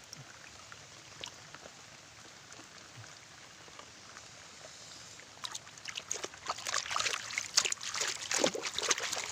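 Faint steady hiss, then from about five and a half seconds in, irregular splashing and dribbling of pond water that grows louder, with sharp crackling spatters.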